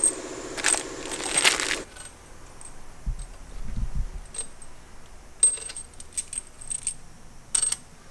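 Small steel bolts and metal parts clinking as they are handled, busy for the first two seconds. Then single light metallic clicks and taps follow as a hand tool works on the cylinder-head bolts.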